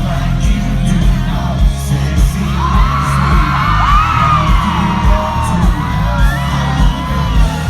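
Loud amplified country music played live, with a heavy bass beat, and the crowd whooping and yelling over it, most thickly in the middle.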